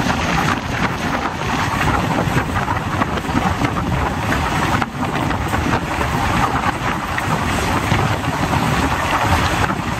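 Express train with old ICF coaches running at speed, heard from on board: a steady rush of wheel and running noise with wind buffeting the microphone.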